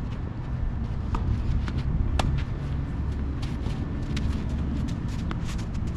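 Footsteps and shoe scuffs on a hard tennis court, with a few sharp taps, the loudest about two seconds in, over a steady low rumble.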